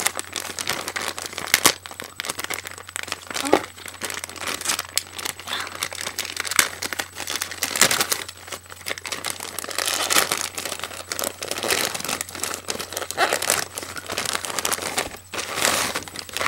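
Packaging being opened and handled by hand: continuous crinkling and rustling with sharp crackles as the wrapping is pulled apart and a t-shirt is taken out.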